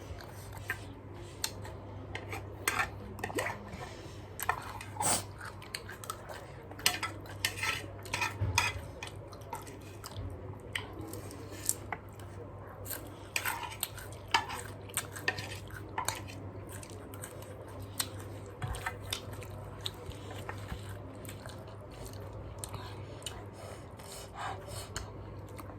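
Eating sounds: irregular short crunches of raw cabbage being chewed, mixed with utensils clinking on dishes, over a steady low hum.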